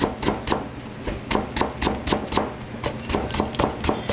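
Kitchen knife slicing carrots on a cutting board: a steady run of chops, about three to four a second.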